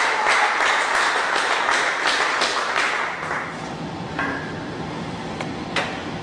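A sledgehammer pounding LaBock Level 3 laminated security glass: rapid repeated blows, about three a second, each with a sharp crack over a hiss of crunching glass for about three seconds, then the sound drops away to a few single knocks. The glass holds; it crazes but is not broken through.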